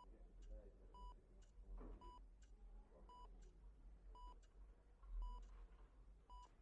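Hospital heart monitor beeping steadily, one short faint beep about every second, over a low hum.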